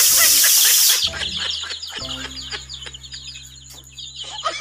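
A crowd of chicks cheeping, with many rapid high peeps overlapping. A loud hiss sits over them and cuts off about a second in, and a low steady hum joins about halfway through.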